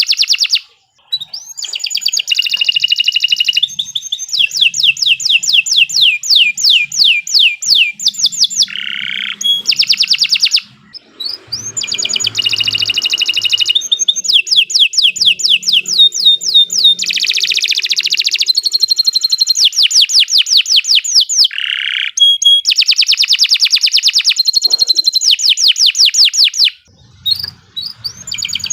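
Domestic canary singing a long continuous song of rapid trills and rolls of quickly repeated notes, one phrase running into the next, with brief pauses about a second in, near the middle and near the end.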